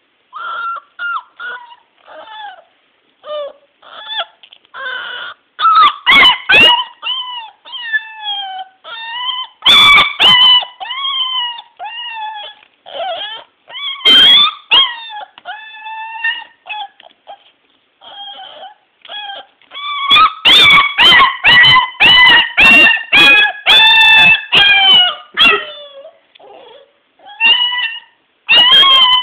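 Puppy shut in a wire crate, wailing and whining over and over in distress: short high cries that mostly slide down in pitch, swelling into louder runs of wails several times, with sharp clicks among the loudest cries.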